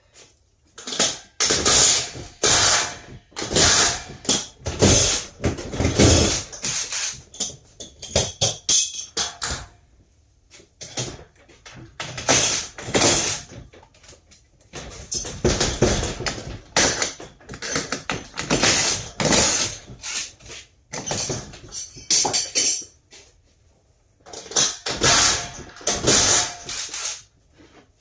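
Irregular bursts of clanking and rattling, like metal parts being knocked and handled, with short quiet pauses between them.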